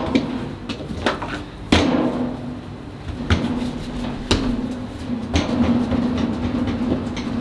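About five sharp wooden knocks, a second or so apart, as croissant dough is worked on a workbench with hands and a long wooden rolling pin.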